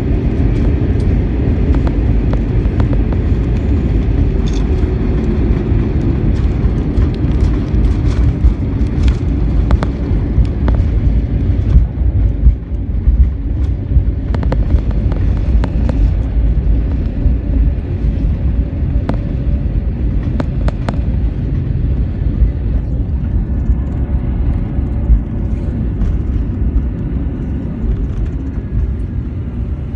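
Airbus airliner heard from inside the cabin: a loud, steady low rumble of engines and airframe, with an engine tone sliding down in pitch over the first few seconds as the engines wind down. Scattered faint clicks and rattles sit over the rumble.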